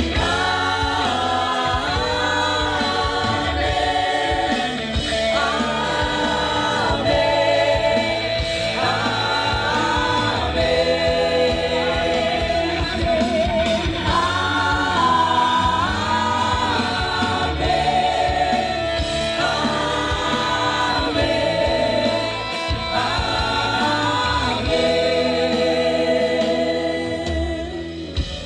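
Live Christian worship music: a group of voices singing long held phrases over steady instrumental accompaniment.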